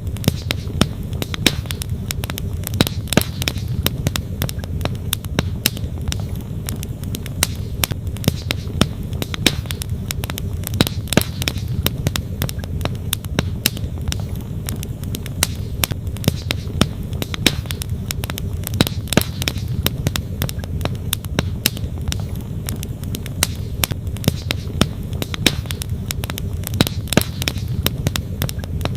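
Wood fire crackling with frequent sharp, irregular pops, over the steady low rush of a flowing stream.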